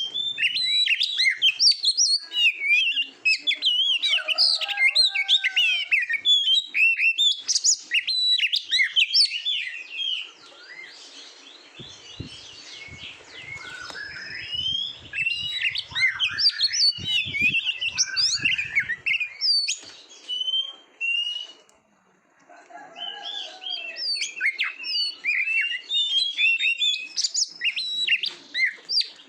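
Oriental magpie-robin (kacer) singing a rapid, varied song of high whistles, chirps and trills. The song softens for several seconds about a third of the way in, with faint hiss and a few low knocks, drops out briefly about three-quarters through, then resumes at full strength.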